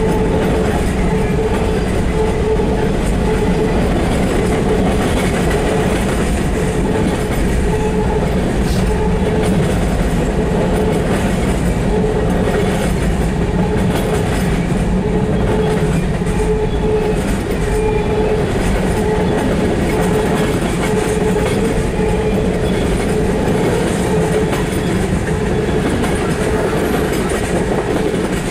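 Freight train's boxcars and tank cars rolling past, a steady loud rumble with clickety-clack of the wheels on the rail, heard from inside a car.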